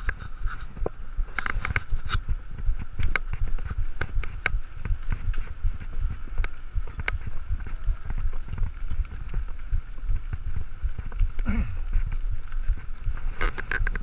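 Specialized Stumpjumper mountain bike ridden fast over pavement, heard through a handlebar-mounted action camera's housing: a muffled, pulsing low rumble and thudding from the ride, with scattered clicks and rattles from the bike. One brief rising squeak late on.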